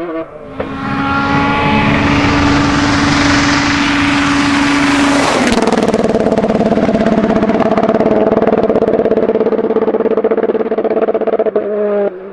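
Rally car engine held flat out at constant high revs, its note steady in pitch with a rushing noise over it. About five seconds in the note drops suddenly to a lower steady pitch with a fast stuttering pulse, typical of the engine bouncing on the rev limiter.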